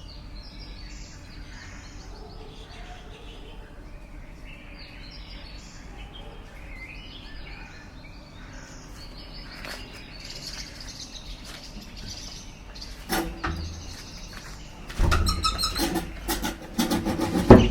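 Several small birds chirping and calling in short, overlapping phrases. Near the end, loud irregular knocks and rustling take over.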